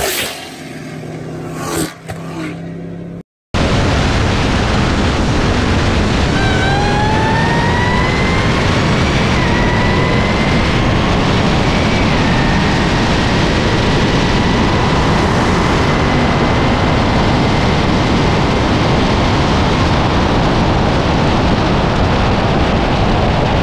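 Supercharged 6.2 Hemi of a Dodge Charger Hellcat at full throttle, heard through a GoPro mounted on the car: a loud rush of engine and wind with a supercharger whine that rises in pitch and drops back at two gear shifts, then holds steady. A quieter stretch and a brief cut to silence come first, about three seconds in.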